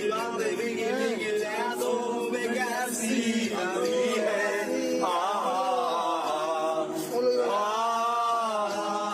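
Men's voices singing together without instruments: a slow, chant-like song with long held notes.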